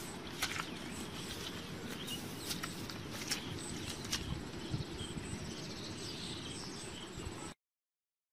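Outdoor field ambience: insects chirping steadily with small birds calling, and a few sharp clicks in the first half. The sound cuts off suddenly near the end.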